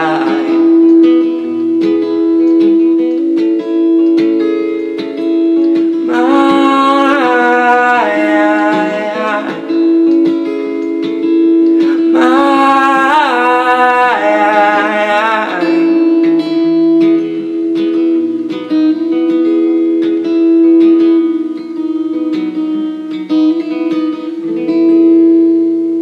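Acoustic guitar playing a song, with a man's singing voice coming in twice, about six and twelve seconds in, over the guitar.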